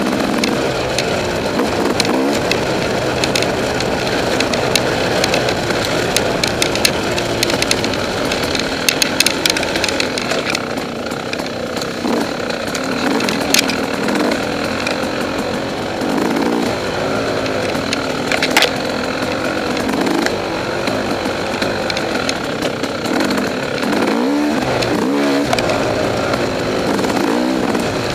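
2009 KTM 300XC's two-stroke single-cylinder engine revving up and down as the bike rides tight dirt single track, heard from a camera mounted on the bike. A few sharp knocks and rattles cut through, the clearest around halfway and two-thirds of the way in.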